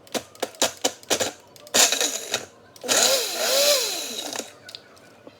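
Ninja personal blender pulsed in several short bursts, then run for about a second and a half, its motor pitch rising and falling as it labours on frozen fruit.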